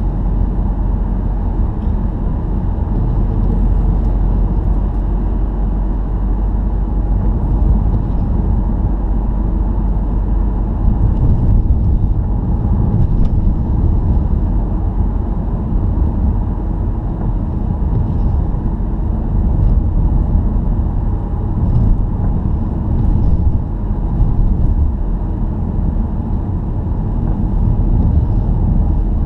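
Steady low rumble of a car driving along the road, heard from inside the cabin.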